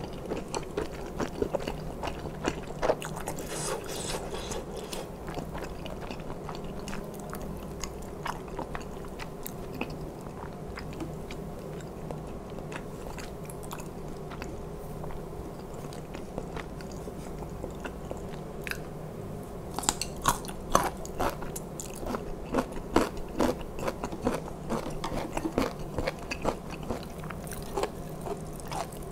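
Close-miked chewing of noodle soup: a steady run of wet mouth clicks and smacks, growing denser and louder about two-thirds of the way through.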